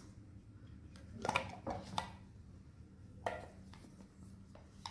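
A few light clicks and clacks as the containers and lid of an electric lunch box are handled and set in place, about half a dozen small knocks spread over a few seconds.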